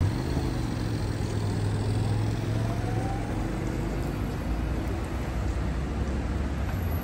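Road traffic: vehicle engines running with a motorcycle and a car passing, and an engine note rising in pitch about two seconds in.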